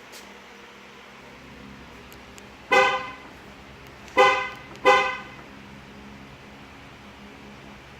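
Dodge Grand Caravan horn chirping three times in short toots, the last two close together, as the key fob's lock button is pressed three times to trigger the remote starter.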